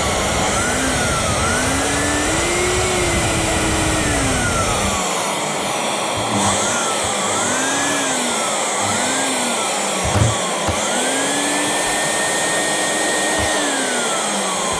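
Numatic Henry HVR200-22 1200-watt vacuum cleaner motor running on its function test after repair, with a rushing airflow noise and a whine that rises and falls in pitch several times. The motor runs: the vacuum works again.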